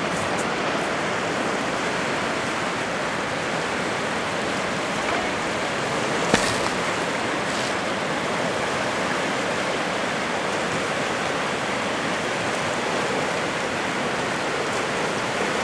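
River whitewater rushing steadily through rapids, with a single sharp click about six seconds in.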